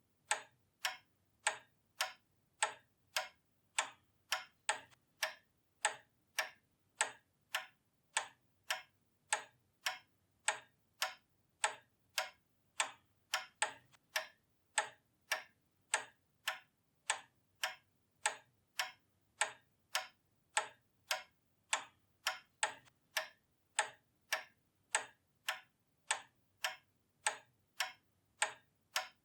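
Pendulum clock ticking steadily: crisp, evenly spaced ticks at about two a second.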